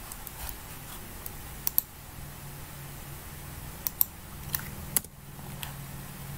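Sharp clicks at a computer, scattered and several in quick pairs, over a steady low hum.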